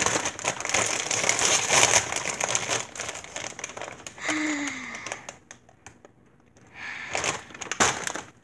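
A plastic chip bag of Simply Ruffles crinkling loudly as it is pulled open. About four seconds in there is a short strained vocal sound, and more crinkling comes near the end.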